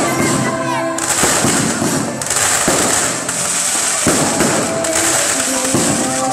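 Fireworks going off overhead: several sharp bangs with a dense crackle of bursting stars between them.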